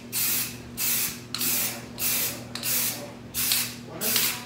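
Aerosol can of Rust-Oleum frosted-glass spray paint sprayed in a string of short, even bursts: about seven hisses of under half a second each, roughly one and a half a second.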